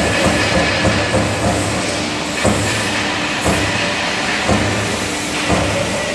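Euromac MTX Plus CNC turret punch press punching sheet metal, over the machine's steady hum. For about the first second and a half the punch strokes come fast, about three a second; after that they come singly, about once a second.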